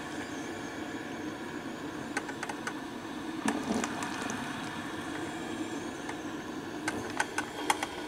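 Black & Decker drip coffee maker brewing a white-vinegar cleaning cycle: a steady gurgling hiss as it heats and pushes the water through, with scattered small ticks and pops, more of them near the end.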